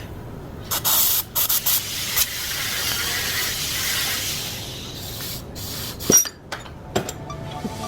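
Several sharp clicks, then a hissing spray that swells and fades over about three seconds, followed by a few more clicks.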